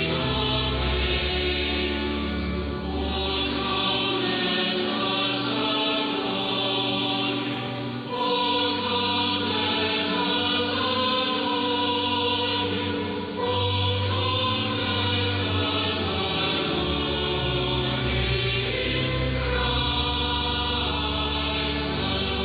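Choir singing at a cathedral midnight mass, heard as an AM longwave broadcast from BBC Radio 4, with the dull, treble-less sound of AM radio.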